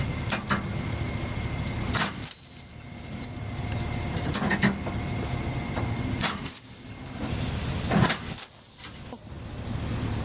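Vehicle engine running with a steady low rumble, cut by several sharp metallic clanks and knocks.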